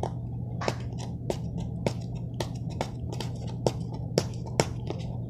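Fingernails picking and scratching at packing tape on a cardboard box: about a dozen sharp, irregular clicks over a steady low hum.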